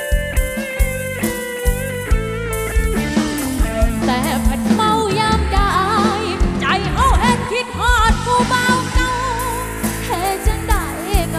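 Live lam sing band music, Isan folk-pop, in an instrumental passage with a steady driving beat and a plucked lead. From about four seconds in, a wavering, bending melody line rises above the rhythm.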